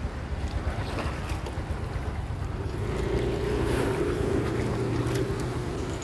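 Small 125 cc Suzuki Shogun moped engine running as the bike wades through shin-deep floodwater, with water sloshing and splashing around the wheels and the rider's feet. The engine gets louder from about three seconds in and eases back shortly before the end.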